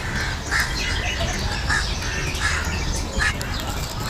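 Birds calling: short squawking calls repeated every half second or so, over a steady low background noise.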